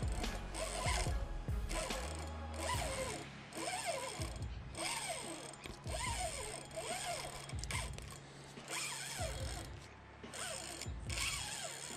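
Spinning reel clicking and whirring in repeated bursts as it is cranked against a hooked snook, the drag ratcheting while the fish pulls line.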